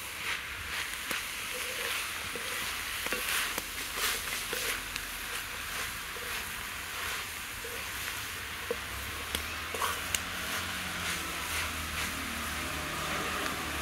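Drumstick leaves and grated coconut sizzling in a metal kadai, stirred and turned with a wooden spatula that scrapes and clicks against the pan now and then.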